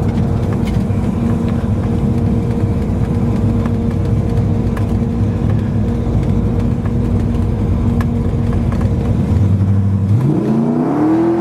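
1970 Chevelle SS's 454 big-block V8, through headers and 3-inch dual exhaust, running at a steady low drone. About ten seconds in, it revs up once and drops back.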